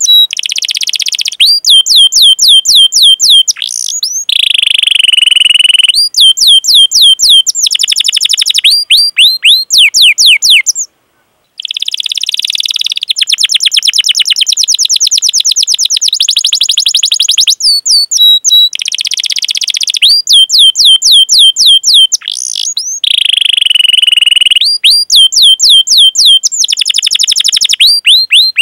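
Domestic canary singing: long runs of rapid, repeated high chirps, each sweeping down in pitch, alternating with sustained rolling trills. The phrases are broken by short pauses, with a brief total dropout near the middle.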